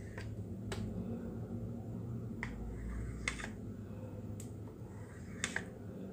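Knife blade clicking against a ceramic plate as a block of Spam is sliced into sticks: a few sharp, separate clicks over a low steady hum.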